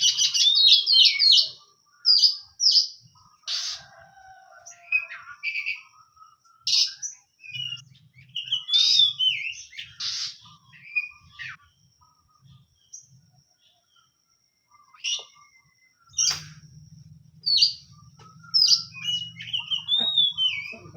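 Oriental magpie-robin (kacer) singing in short, loud phrases of chirps and whistles, some sliding up and down, with pauses between phrases.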